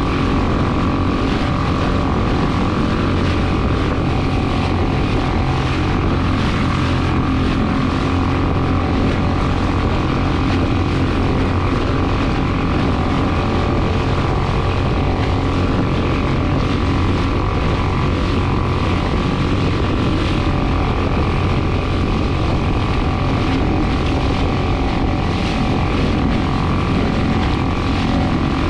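Boat motor running steadily at an unchanging speed, with a constant hum and whine and a hiss of wind over it.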